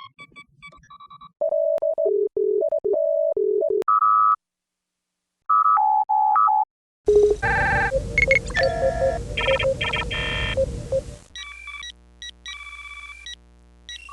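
A sequence of sci-fi starship computer and console sound effects: short electronic beeps and two-note chirps in quick patterns, with brief pauses. About seven seconds in, a dense flurry of console bleeps starts over a loud hiss and rumble. It gives way near the end to sparser beeps over a steady low hum.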